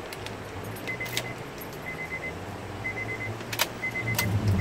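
Car key clicking in the ignition while the car's warning chime beeps about once a second, with a low hum underneath that grows louder near the end.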